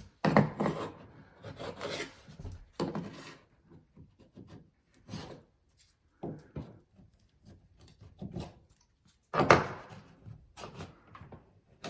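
A chisel scraping flat across a wooden stair tread in short, irregular strokes, shaving off excess hardened knot filler left proud of repaired nail holes. The loudest stroke comes about nine and a half seconds in.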